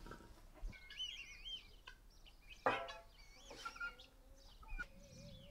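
Farmyard birds calling: quick warbling chirps, with one louder, lower call from a chicken about halfway through.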